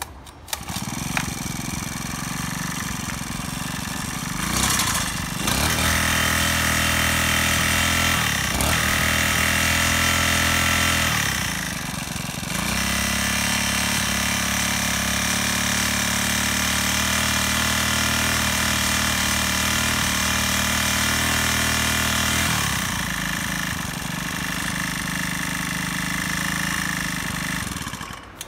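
Honda FG200 mini tiller's small 1.9 hp four-stroke engine is pull-started and catches at once, then idles. About five seconds in it is revved up and held at high speed, with a brief dip partway through. Near the end it drops back to a lower speed and cuts off just before the end.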